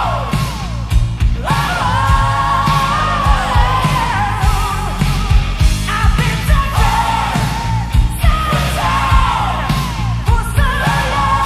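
Hard rock demo recording: a woman sings lead over electric guitar, bass and drums, with steady drum hits throughout.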